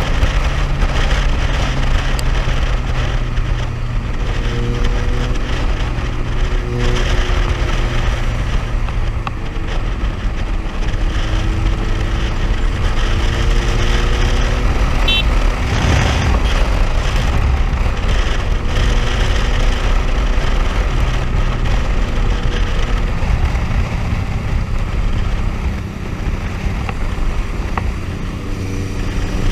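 Motorcycle engine running steadily at cruising speed, heard from the rider's seat with heavy wind noise on the microphone. Fainter engine notes of other vehicles drift up and down in pitch in the first half.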